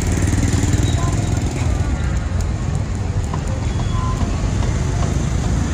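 Busy street ambience: a steady low rumble of traffic with faint voices mixed in.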